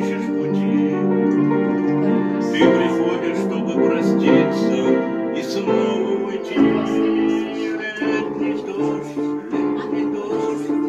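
Piano playing a slow song accompaniment: sustained chords with a new chord struck every second or so, without singing.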